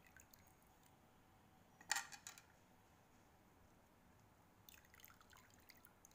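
Water splashing and dripping in a steel bowl as hands lift and drop handfuls of chopped bitter gourd to rinse it. There are two short spells of splashing, the louder about two seconds in and a softer one about five seconds in.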